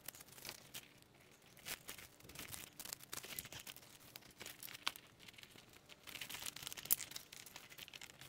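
Faint rustling and crackling as a cable and a fabric strap are handled and wrapped around an e-bike's frame tube, with many small scattered clicks.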